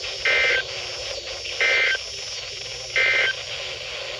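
Three short two-tone digital data bursts, about a second and a half apart, over the radio receiver's steady hiss: the Emergency Alert System SAME end-of-message code that closes a weather radio warning.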